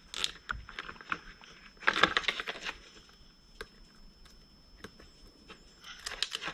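Hands handling a plastic console trim piece and its wiring: scattered light clicks and rustles, with a short scratchy burst about two seconds in.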